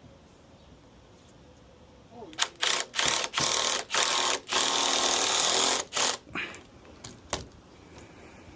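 Cordless impact driver driving a screw into deck framing: several short trigger bursts, then one longer run of about a second and a half, with a couple of brief blips after.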